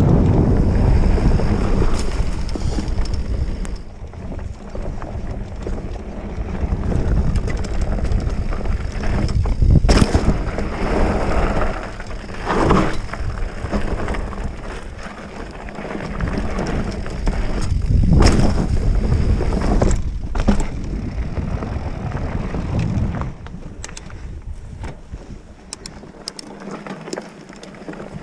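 Mountain bike being ridden on a dirt trail, heard from a camera on the rider: wind rushing over the microphone and tyres rolling, with sharp knocks from the bike over bumps about two, ten, thirteen and eighteen seconds in. It gets quieter near the end.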